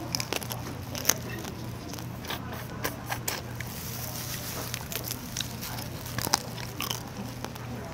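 Raw soy-sauce-marinated crab squeezed by hand and bitten into: wet squishing, scattered crackles and sharp clicks of cracking shell, and chewing. The loudest clicks come about a second in and again past six seconds, over a steady low hum.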